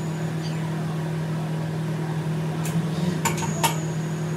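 A steady low hum, with three or four sharp metallic clinks with a brief ring about three seconds in, as a loaded barbell is lifted off a bench-press rack.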